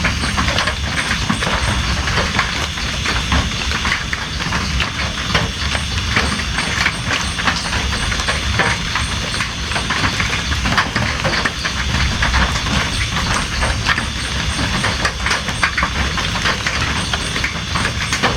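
Steady rain falling: a dense, even hiss made up of countless separate drop strikes, with a low rumble under it.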